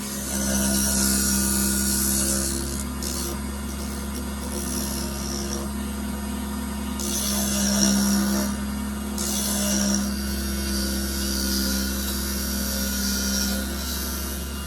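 A power tool's motor running steadily while wood is worked, with several spells of scraping as the tool or abrasive bites into the wood.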